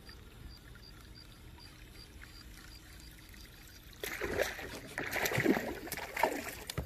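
A largemouth bass strikes a topwater lure at the surface. From about four seconds in there are sudden, loud bursts of splashing and thrashing water that last until near the end.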